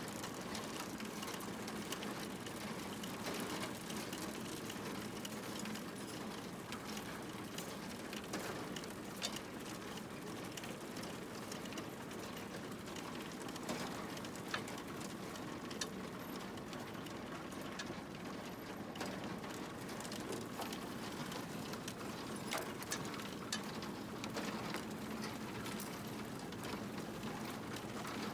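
Hagedorn Wisent potato harvester running, its rod chains and sorting table rattling steadily, with many small clicks and knocks of potatoes tumbling over the rods above a faint steady low drone.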